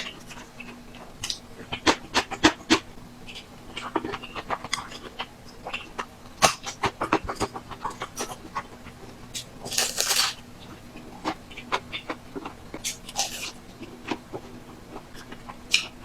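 Close-miked eating sounds of a person chewing small buns in spicy mala sauce: irregular wet smacks and clicks of the mouth, with a longer hissing noise about ten seconds in and again near thirteen seconds.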